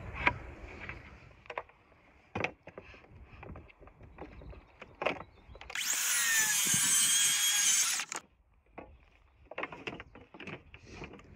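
Knocks and clatter of a board and guide rail being handled, then, about six seconds in, a Makita track saw cutting through a timber fence slat for about two seconds before stopping suddenly.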